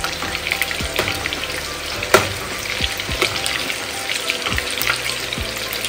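Marinated chicken 65 pieces deep-frying in hot oil in a wok: a steady crackling sizzle with many small pops, stirred with a metal slotted spoon. A single sharp knock about two seconds in.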